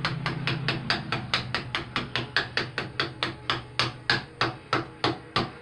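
Rubber mallet tapping steadily and quickly, about four light blows a second, driving a snug-fitting part into a wheel hub. A faint low hum runs underneath.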